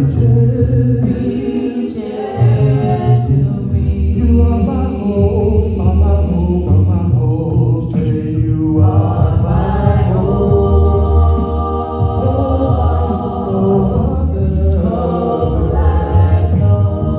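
Two men singing a gospel song a cappella through microphones, with a melody line over a low bass part and no instruments.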